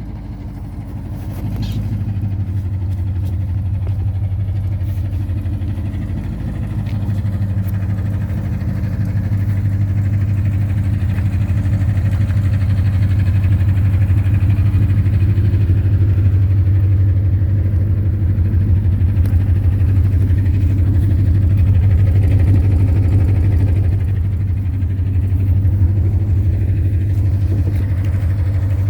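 2010 Ford Mustang GT's 4.6-litre V8 running steadily with a fast, repeated knock, which the owner has been told could be rod knock or lifter tick.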